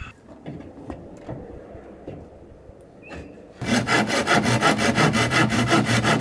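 Hand saw cutting through a wooden board in quick, even strokes, starting about three and a half seconds in. Before that there are only a few light handling knocks.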